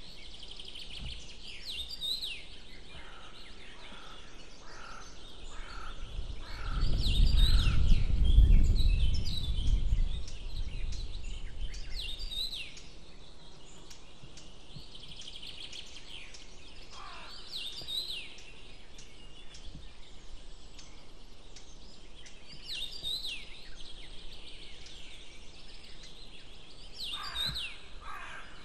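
Wild birds singing and calling at intervals, short high chirps and trills with a few falling notes. About seven seconds in, a loud low rumble swells for a few seconds and fades out.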